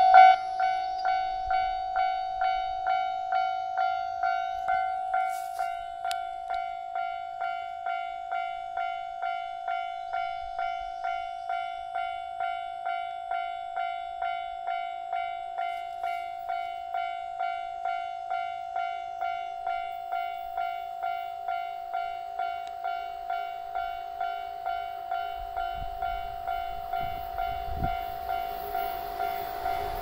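Japanese level-crossing warning bell ringing in an even, steady ding-ding at just under two strikes a second. The rumble of an approaching train builds beneath it over the last few seconds.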